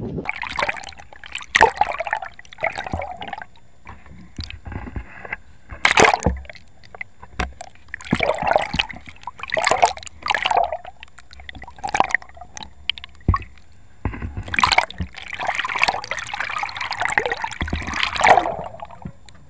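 Water sloshing and gurgling around a camera held just under the surface, in irregular splashy bursts, with a longer stretch of continuous sloshing near the end.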